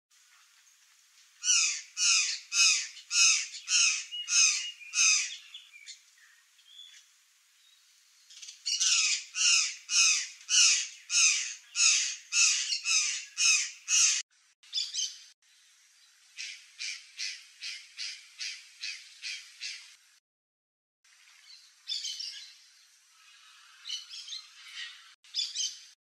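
Cyanocorax jay giving runs of loud, harsh calls, about three a second, repeated in bursts that stop abruptly between runs.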